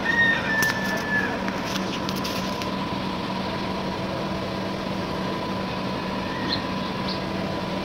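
Steady mechanical hum, with a brief high squeak in the first second and a few scattered clicks.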